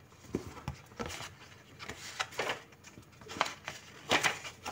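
Pages of a thin paper booklet being leafed through: a string of soft, irregular paper rustles and flicks.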